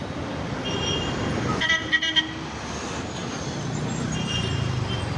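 Road traffic running steadily, with vehicle horns tooting three times: briefly about a second in, loudest around two seconds, and again near the end.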